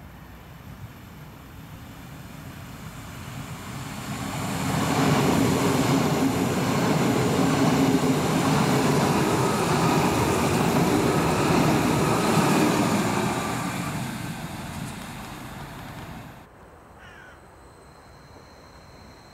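Two coupled DB Class 430 electric multiple units passing at speed: the rush and rumble of wheels on rail builds up, holds for several seconds as the train goes by, then fades, cutting off suddenly near the end.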